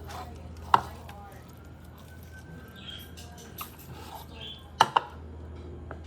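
Chopping knife striking a cutting board while cutting up a chicken: three sharp knocks, one about a second in and two in quick succession near the end.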